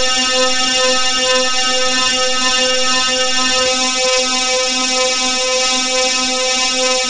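Black MIDI playback: thousands of notes sounding at once merge into a loud, steady drone of stacked tones with a fast flutter.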